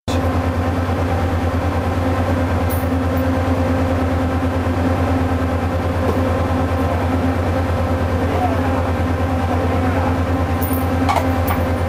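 Steady low drone of a ship's engines and machinery heard on deck, with an even low pulsing and a steady hum above it. A few faint clicks near the end.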